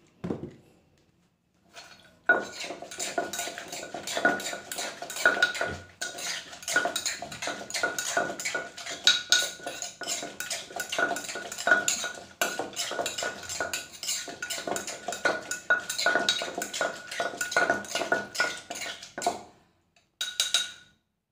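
Metal spoon clinking and scraping rapidly against the inside of an earthenware mortar, mixing pickled bamboo shoots with seasonings, with a faint ringing tone under the clinks. It starts about two seconds in, stops shortly before the end, and there is one short burst after.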